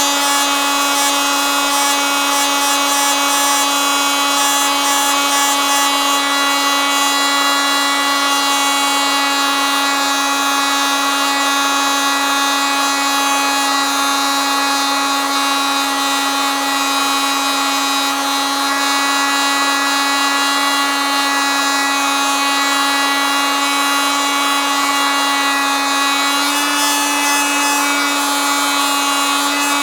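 Oscillating multitool running continuously, a steady buzz held at one pitch, with a slight shift in tone near the end.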